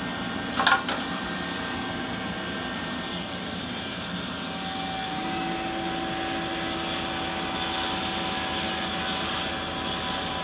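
Star SR32J Swiss-type CNC lathe running steadily. A brief loud clatter comes less than a second in, the finished part dropping into the part conveyor. A steady whine sets in about five seconds in.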